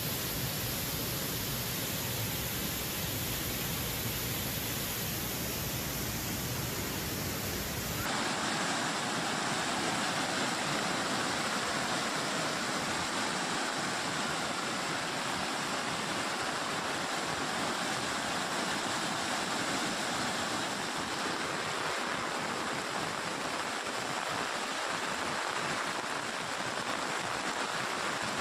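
Muddy floodwater rushing in a steady torrent. About eight seconds in the sound changes abruptly: the deep rumble drops away and the rush turns brighter.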